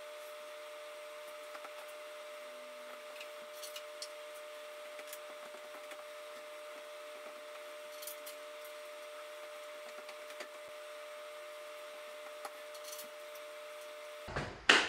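A quiet, steady room hum with a few faint, scattered clicks and light knocks from parts and tools being handled at the machine. It cuts off abruptly near the end.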